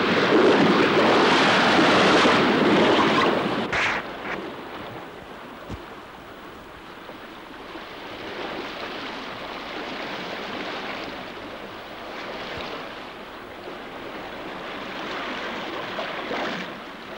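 Rushing sea water and spray around an open whaleboat being pulled fast through rough sea. About four seconds in it drops sharply to a quieter, steady wash of waves.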